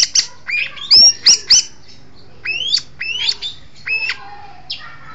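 Long-tailed shrike (cendet) singing: loud, sharp whistled notes that sweep up and bend over, given in short phrases of two or three with pauses between them.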